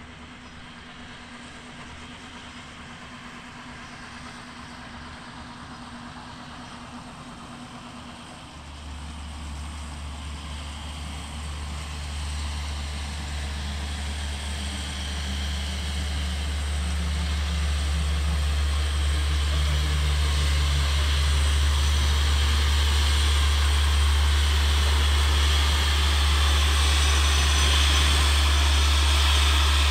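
Sentinel geared steam locomotive drawing its train slowly in, growing steadily louder as it nears, with a steady low rumble setting in about a third of the way through and a rising hiss of steam.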